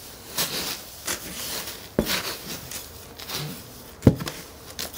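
Gloved hands stirring and scraping loose potting mix and perlite in a cardboard box: a dry rustling with a few sharp knocks and scuffs against the cardboard, the loudest about two seconds in and about four seconds in.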